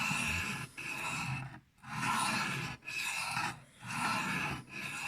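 Thin 12C27-steel blade of a Manley Wasp knife drawn freehand across a sharpening stone: about six even scraping strokes, each just under a second long, one after another, while the edge is brought up sharper at a lowered angle.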